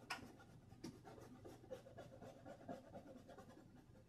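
Near silence, with the faint scratching of a paintbrush laying acrylic paint onto canvas and a couple of soft taps, one near the start and one about a second in.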